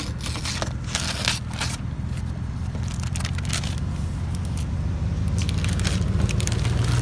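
Low rumble of a car heard from inside the cabin, growing a little louder toward the end, with a run of crackling, crinkling clicks in the first few seconds.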